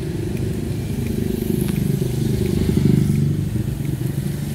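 Engines of nearby road traffic, most likely motorcycles and small vehicles, running with a steady low rumble that swells to its loudest about three seconds in.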